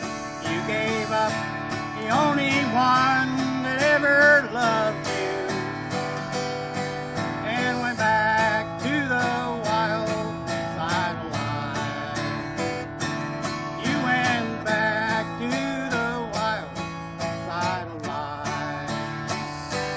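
Instrumental break of a country song: an acoustic guitar strumming a steady rhythm under a lead melody of bending, gliding notes.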